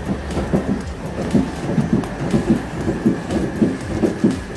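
A plate waved over a charcoal grill to fan the coals, making a rhythmic whoosh of air about three times a second, with light crackling from pork belly cooking over the embers.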